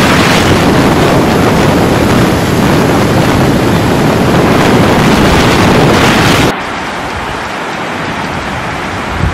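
Typhoon wind buffeting the microphone amid heavy rain, a loud, rough, steady rush. About six and a half seconds in it cuts off suddenly to a quieter, steady downpour.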